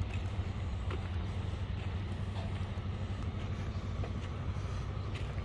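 A steady low rumble with faint, irregular footsteps on a dirt and gravel path.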